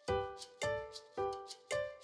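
Background music: a light tune of short pitched notes on a steady beat, about two notes a second, each note fading before the next.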